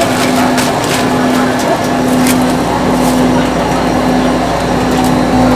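Busy market-stall ambience: background crowd chatter over a steady low hum that breaks off and returns about once a second, with a few light clicks.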